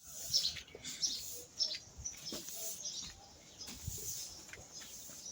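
Birds chirping: many short, scattered high calls.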